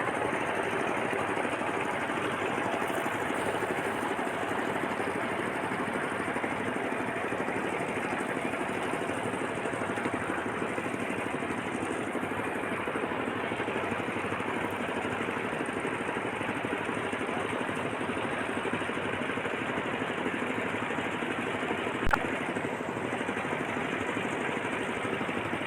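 A small engine running steadily with a fast, even chatter, and one sharp click about 22 seconds in.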